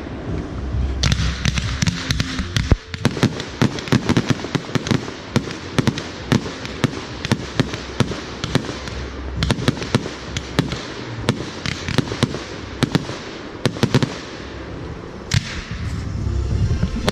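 Fireworks display: a rapid, continuous run of sharp bangs and aerial shell bursts, several a second, with no let-up.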